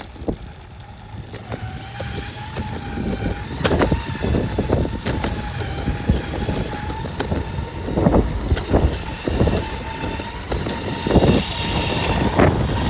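Ecomobl ET electric skateboard on the move: a thin electric-motor whine with overtones, a little higher in pitch from about halfway through, over the rumble of the wheels on the ground and wind on the microphone. Repeated knocks and thumps come from the board going over bumps, heavier in the second half.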